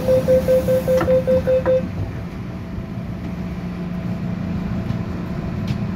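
MTR M-Train door-closing warning: rapid high beeps, about six a second, with two knocks near the end. The beeping stops about two seconds in, leaving the train's steady low running hum as it pulls out of the station.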